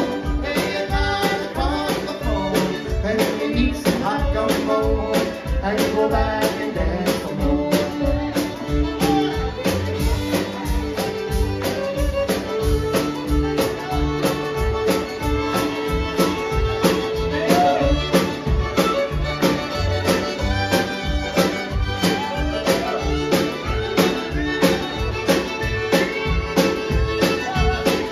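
Live country band playing with a steady drum beat: fiddles, accordion, pedal steel, acoustic guitar, mandolin and upright bass.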